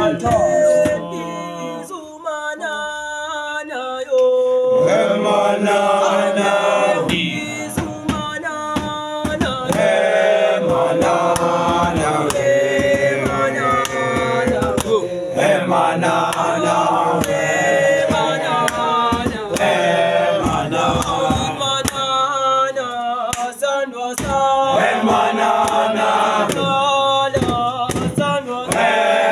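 A group of young men singing a chant-like song together, several voices at once with held, shifting notes.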